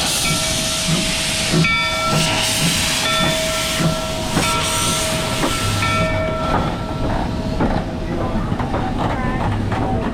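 Loud hiss like venting steam, with a steady whistle-like tone over it; the hiss and the tone die away about six to seven seconds in.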